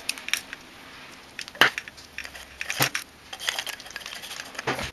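Plastic and metal parts of a barbecue lighter clicking together as it is reassembled by hand, with two sharp clicks about a second and a half and nearly three seconds in. Near the end, small faint ticks as a screwdriver drives a screw into the lighter's body.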